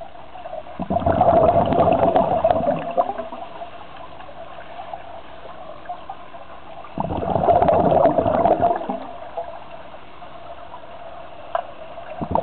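Scuba regulator exhaust bubbles gurgling underwater as a diver breathes out: two long exhalations about six seconds apart, the start of a third at the very end, with a faint steady tone in the quiet between breaths.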